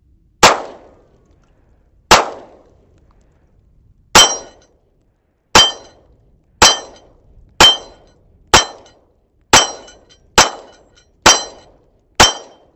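Stoeger STR-9C 9mm compact pistol fired eleven times from a 13-round magazine. The first few shots come about two seconds apart, then they settle to roughly one a second, each a sharp crack with a short ring after it.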